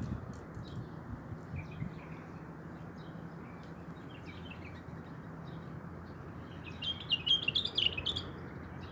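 Small birds chirping, with a louder run of rapid chirps about seven seconds in, over a steady low hum.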